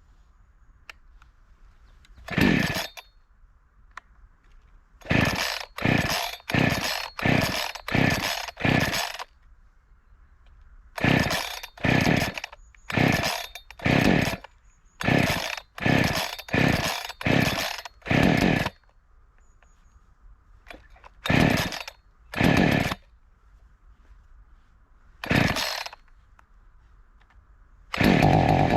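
New chainsaw being pull-started: over twenty short rasps of the recoil starter cord, in quick runs with pauses between, without the engine catching. Near the end the engine fires and keeps running steadily.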